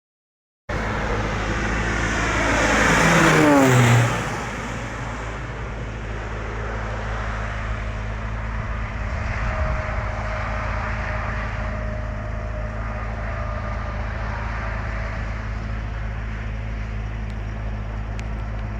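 A heavy machine engine running steadily with a low hum. It cuts in suddenly, and in the first few seconds a loud sweep falls steeply in pitch before the running settles.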